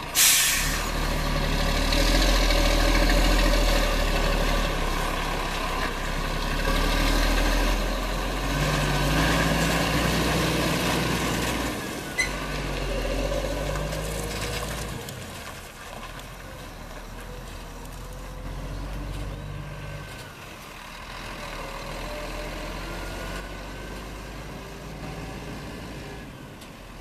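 Scania 113 truck's straight-six diesel pulling away under load with a loaded grain trailer. It opens with a sharp hiss of air from the brakes, then the engine's low note climbs and drops with each gear change. From about halfway the sound gets fainter as the truck moves off.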